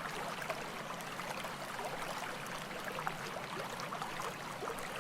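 Running water of a stream: a steady rush with small gurgles and splashes scattered through it.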